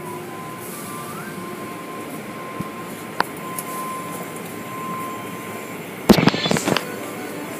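Automatic tunnel car wash running: a steady hiss of water spray and machinery with a faint steady whine. About six seconds in comes a burst of loud, rapid knocks and slaps lasting under a second.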